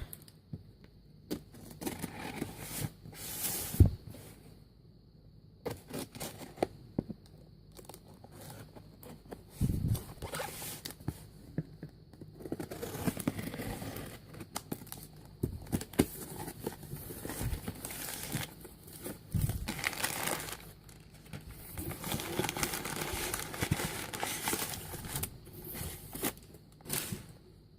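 A package being unwrapped and opened by hand: packaging tearing and crinkling in irregular stretches, with scattered knocks and thumps of handling; a sharp knock about four seconds in is the loudest.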